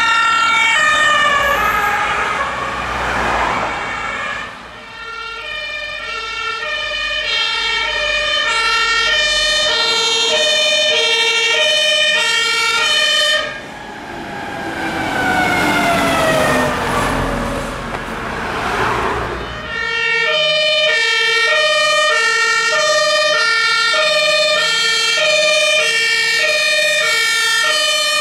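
German fire service vehicles' two-tone sirens alternating steadily between a lower and a higher pitch. Twice, as a vehicle passes, the whole pattern sweeps down in pitch, and the engine is heard under it.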